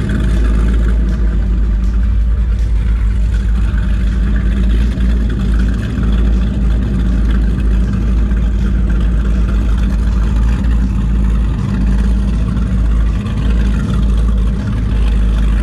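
Offshore go-fast powerboat's engines running at low speed past the dock, a loud, steady deep drone.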